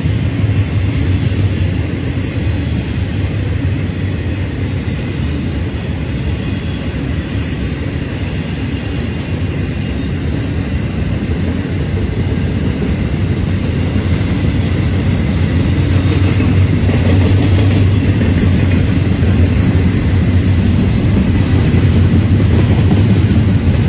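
Florida East Coast Railway intermodal freight train rolling past: double-stack container cars and trailer flatcars making a steady rumble of wheels on rail, which grows a little louder over the second half.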